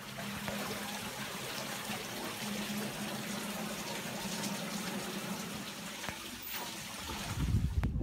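Water splashing and trickling off a small decorative water wheel into a stone fountain basin, a steady rush of noise. A loud low rumble comes in near the end.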